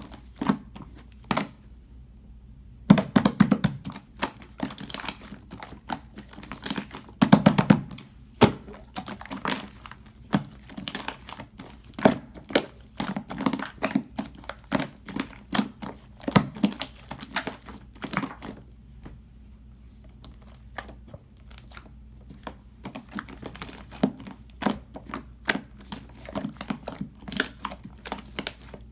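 Slime being poked, pressed and squished by hand, giving irregular sticky clicks and small pops, with a few louder, denser bursts of squishing along the way.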